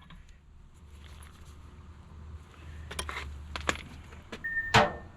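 Metal clinks from the wrench and the 27 mm propeller nut as it comes off a boat's prop shaft: a few sharp clinks about three, three and a half and nearly five seconds in, over a low steady hum.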